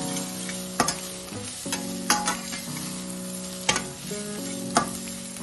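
A steel spatula scraping and knocking against a stainless steel pot while onions, spices and dried red chillies fry over a low flame, with a light sizzle underneath. About six sharp scrapes stand out, spread unevenly through the stirring.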